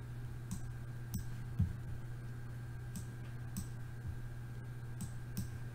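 Computer mouse clicking, a handful of separate clicks spaced irregularly, over a steady low hum.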